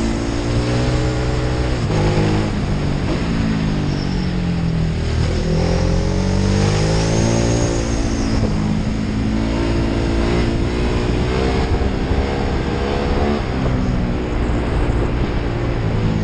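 Ducati Hypermotard's V-twin engine under way, its note rising under acceleration and falling as the throttle closes for the bends, several times over, with a steady rush of wind and road noise underneath.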